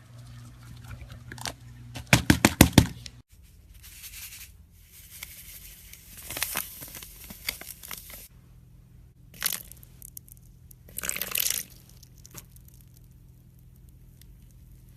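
Slime being handled by hand: a quick run of loud clicking pops about two seconds in, then stretches of crackling and a couple of short bursts.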